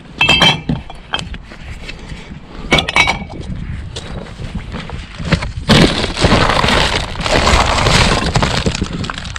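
Empty glass bottles and cans clinking and clattering as they drop into a box of empties, in two ringing bursts in the first three seconds. From just past halfway, a steady loud rustle as plastic garbage bags are dug through.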